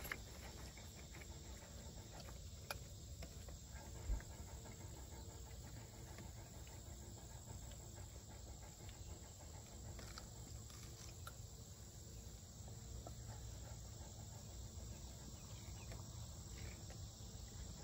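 Faint summer outdoor ambience: insects chirring steadily, over a low rumble, with a soft knock about four seconds in.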